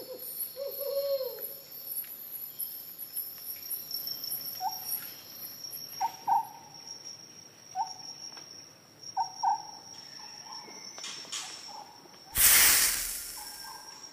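Insects trilling steadily in a natural ambience, with a bird giving short hooting calls every second or two. A loud rushing noise about twelve seconds in briefly covers everything.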